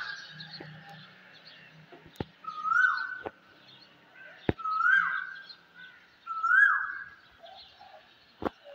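Birds calling at dawn: one bird repeats a short call that rises then falls, three times about two seconds apart, over fainter chirping. A few sharp clicks fall between the calls.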